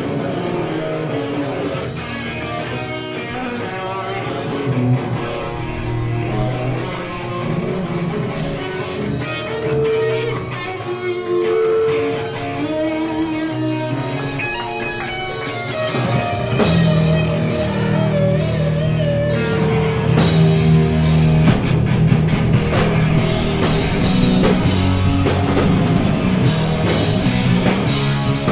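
Hardcore punk band playing live at full volume: electric guitar at first, then drums and bass crash in a little past halfway and the whole band plays hard and fast, cymbals hit constantly.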